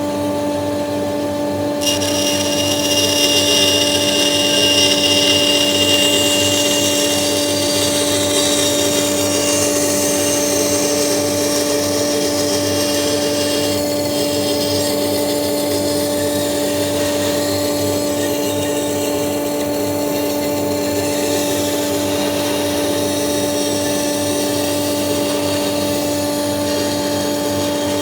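Metabo BAS 261 band saw running with a steady motor hum; about two seconds in the blade starts cutting, adding a high whine and hiss that carry on under the hum.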